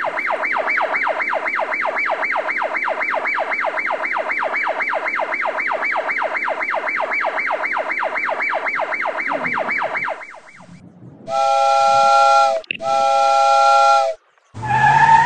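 Electronic toy-train sound effect: a fast warbling whistle tone repeating about four to five times a second for some ten seconds, then two long chorded train-whistle blasts.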